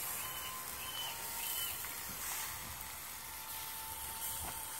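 Sausages sizzling on a barbecue grill, a steady high hiss, with three short high chirps in the first two seconds.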